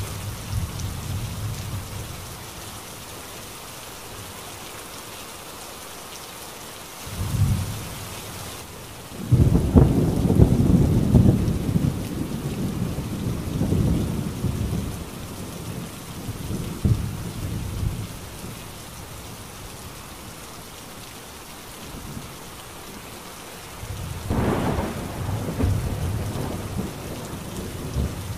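Steady rain falling, with rolls of thunder rumbling over it. There is a short roll about a quarter of the way in, a long one lasting several seconds from about a third of the way through, and another near the end.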